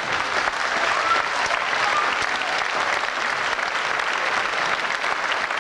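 Boxing crowd clapping and applauding steadily at the end of a round.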